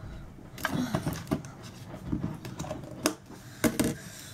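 Scattered sharp clicks and knocks of kitchen items being handled on a counter, several in the first second and a half and two more near the end.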